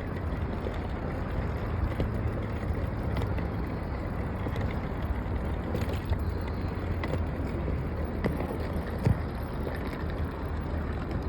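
Haramain high-speed train running: a steady low rumble and rushing noise with a few faint clicks.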